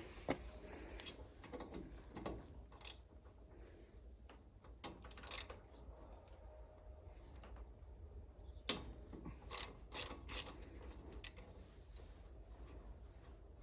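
Scattered clicks and knocks of metal parts and covers being handled on a combine harvester while it is cleaned out by hand. The loudest knock comes about two-thirds of the way through, followed by a quick run of clicks.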